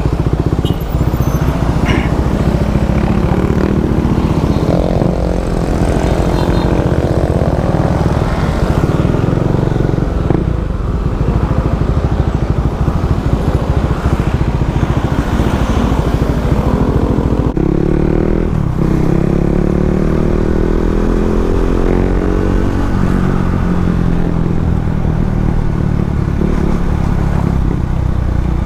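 Motorcycle engine running under way, with heavy wind rumble on the microphone; the engine note climbs as the bike accelerates about five seconds in and again past the middle.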